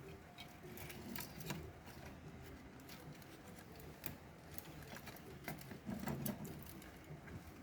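Faint, scattered light clicks and taps of small parts and tools being handled during robot disassembly, over a low steady room hum.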